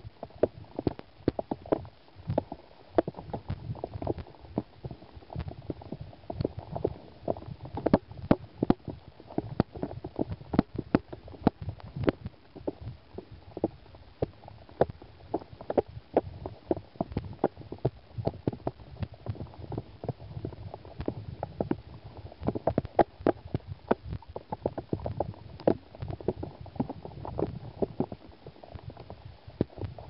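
Fast stream riffle heard underwater: a muffled low rush of current with many irregular clicks and knocks throughout.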